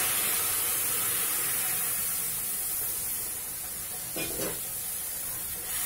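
Milk poured into a hot pan of ghee-fried ground moong dal and melted sugar, sizzling steadily and slowly dying down.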